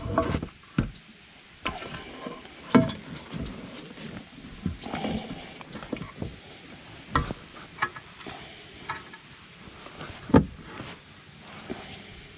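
Irregular knocks and thumps in a kayak while a freshly caught bass is handled, the loudest about three seconds in and again about ten seconds in.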